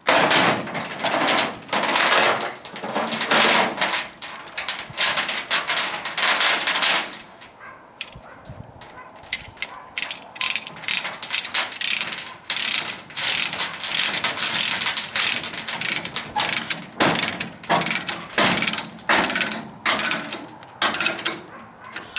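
Ratchet load binder being cranked to tighten a chain, its pawl clicking with each swing of the handle. For about seven seconds the clicking comes in long dense runs; after that it comes in shorter, separate strokes.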